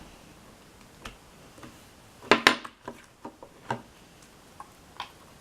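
A fork tapping and clinking against the mixing container a few times. The loudest is a quick pair of taps about two and a half seconds in.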